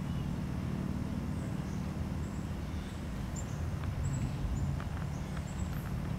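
A low, steady rumble with short, high bird chirps scattered over it and a few faint ticks in the second half.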